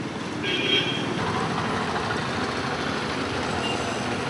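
Road traffic: vehicles driving past with a steady rushing noise, and a short high tone about half a second in.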